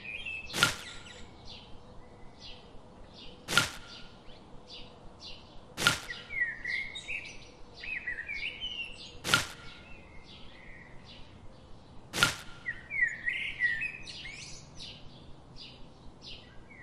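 Five sharp knocks, a few seconds apart, as pieces of sugarcane are set down onto a toy tractor trolley's bed, with birds chirping in the background.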